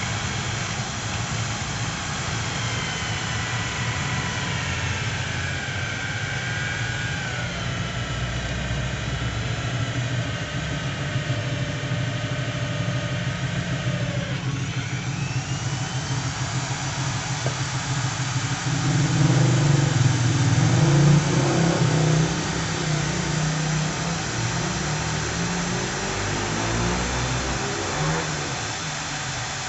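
Corded electric drill mounted in a homemade drill-press stand, running and boring into a metal plate. The motor's whine slides down in pitch as the bit is fed in, and the sound grows louder for a few seconds about two-thirds of the way through.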